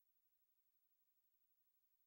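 Near silence, with only a faint, even hiss.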